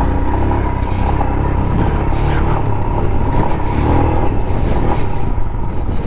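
Royal Enfield Himalayan's single-cylinder engine running steadily as the motorcycle is ridden along a dirt track, heard from the rider's seat.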